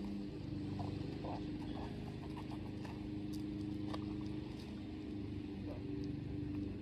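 Steady low hum of a motor running somewhere off, with a few light footfalls and ticks on the concrete pavement.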